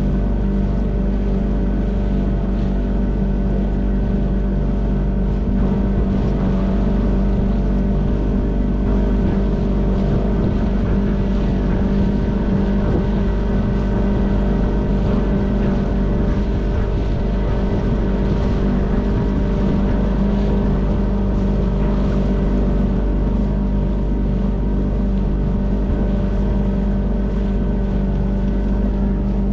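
Outboard motor of a small inflatable boat running at a steady, unchanging speed, with water rushing along the hull.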